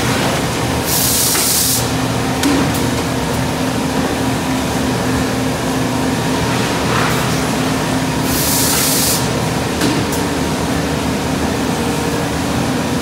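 Thermoforming machine running with a steady mechanical hum, cut twice by a short hiss of compressed air, about a second in and again near nine seconds, each followed by a light clunk.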